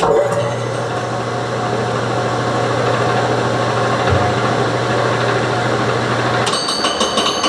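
Wood lathe switched on and running up, spinning a Longworth chuck with a bowl held in it: a steady motor hum with even running noise. About six and a half seconds in the low hum drops away and several high-pitched whining tones come in.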